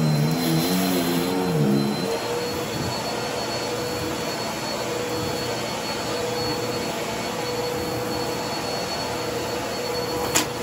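Bissell bagless upright vacuum cleaner running steadily on carpet with a steady motor whine, sucking up lint and small debris. A falling, stepped tone sounds over the first two seconds, and there is one sharp click near the end.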